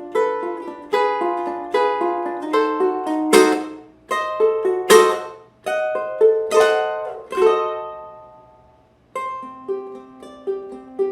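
Tenor ukulele strung with D'Addario EJ88T Nyltech strings, played solo: a picked melody over chords, then several sharp strummed chords in the middle. A chord rings and dies away almost to silence before the picking starts again near the end.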